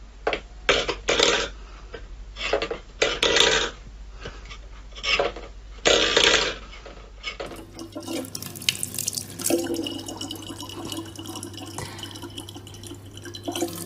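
A stainless steel bowl pushed and clattered on a wooden floor by a cat's paw, about ten short scrapes and knocks over the first seven seconds. After a cut about seven and a half seconds in, a tap runs a thin steady stream of water into a plastic bottle.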